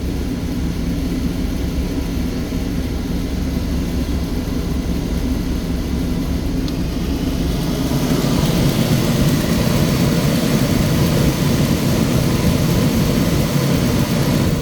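Motorhome's gasoline engine running steadily at idle, growing somewhat louder about halfway through.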